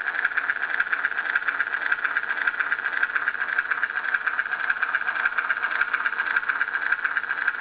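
Recorded Harley-Davidson V-Rod V-twin engine idling steadily, played back through the small speaker of a model's sound module, so it comes out thin and buzzy with no bass.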